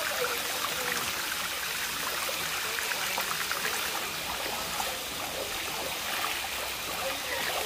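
Steady rush of flowing stream water, with light splashing from a hand paddling in the water.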